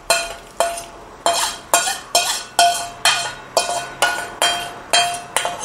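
A metal spoon knocking repeatedly against a small metal tempering pan, about two clinks a second, each with a short ring. This is typical of tapping out the last of a mustard-seed and curry-leaf tempering.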